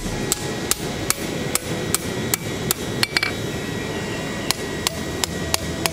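Hand hammer striking a hot steel knife blade on an anvil. The blows are sharp and ringing, about two to three a second, with a pause of about a second just after the middle.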